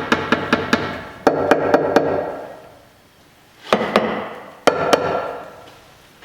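Several bursts of quick, sharp knocks with a metallic ring as the front suspension is struck to test it, with no loose rattle from the new stabilizer links.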